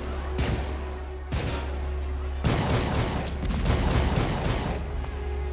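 Film gunfight: pistol shots, single shots at first, then a rapid volley from about two and a half seconds in to nearly five seconds, over a low music score.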